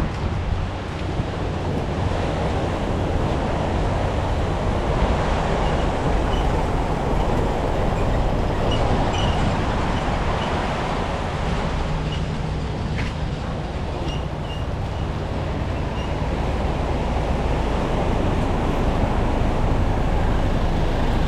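Steady street ambience: a continuous rumble of road traffic, with a few short high chirps in the middle.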